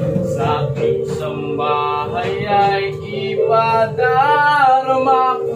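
A teenage boy singing a Tagalog song over a steady instrumental backing track, ending on a long held note that wavers with vibrato.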